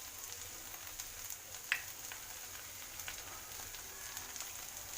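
Potato, paneer and capsicum stuffing sizzling gently in a pan over a gas flame, with scattered small crackles and one sharper click about one and a half seconds in.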